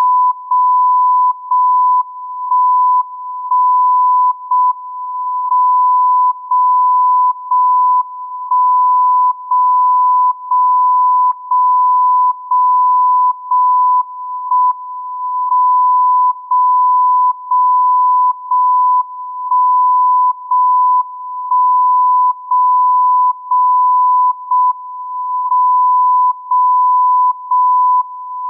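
JJY 60 kHz longwave time signal received on a software-defined radio, heard as a steady tone near 1 kHz. Its level drops and comes back about once a second, the full-strength stretches of varying length: the carrier keyed between full and reduced power to send the time code.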